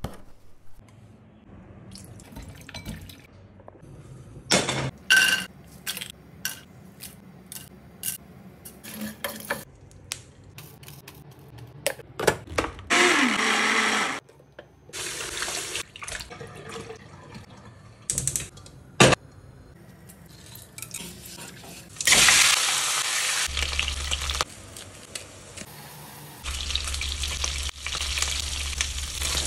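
Kitchen sounds in quick succession: scattered clicks and taps, an electric blender running for about a second and a half near the middle, and later stretches of steady rushing hiss.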